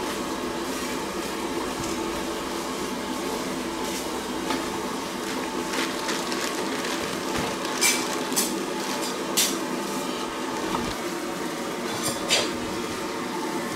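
Knife slicing dried mullet roe on a wooden chopping block, with a few sharp clicks of the blade against the board in the second half, over a steady background hum.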